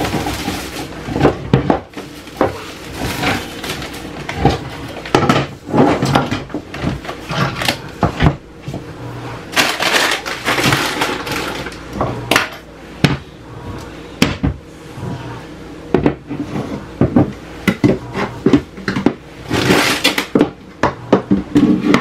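Kitchen things being handled and put away on a wooden counter: plastic and glass containers knocking and clunking as they are picked up and set down, mixed with the rustle of plastic bags and packaging.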